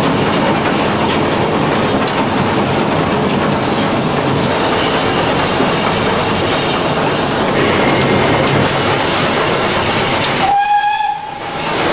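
Footplate noise of BR Standard Class 2 2-6-0 No. 78022, fitted with a Giesl ejector, running at speed: exhaust, wheels on rail and cab rattle merge into one loud, even noise. Near the end the noise drops for under a second and a short high tone sounds.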